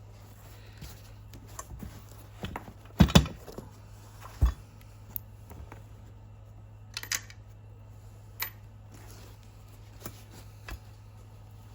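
Scattered knocks and clicks as armrest parts are taken out and handled, the loudest pair about three seconds in and a dull thump soon after, over a steady low hum.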